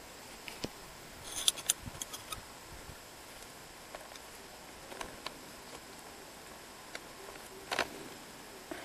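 Handling noise: scattered small clicks and knocks, with a quick run of sharp clicks about one and a half seconds in and a short rattle near the end, over a faint steady hiss.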